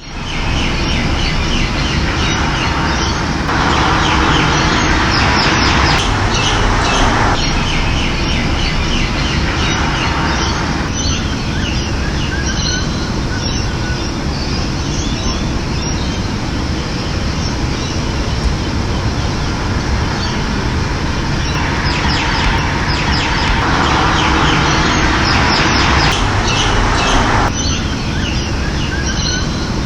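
Steady rush of running water with small birds chirping over it. The rush swells louder twice, a few seconds in and again about two-thirds of the way through.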